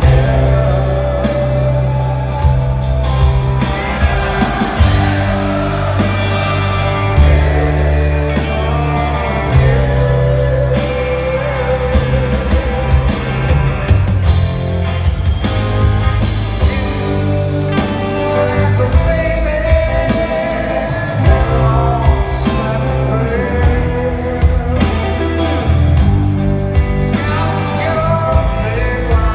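Live rock band playing a slow rock song in an arena: a male lead vocal over electric guitar, bass and drums.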